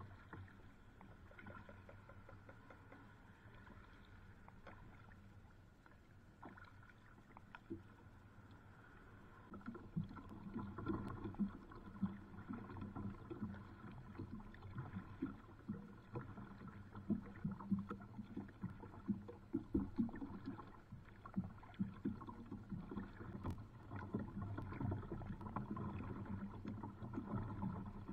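Water splashing and lapping against a kayak's hull under paddle strokes, soft at first and growing louder and choppier about a third of the way in, with many short irregular splashes.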